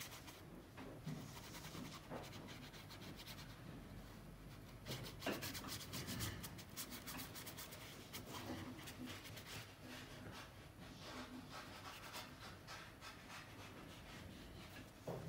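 Paintbrush bristles brushing and scratching over watercolour paper in a run of faint strokes, scratchiest in the middle.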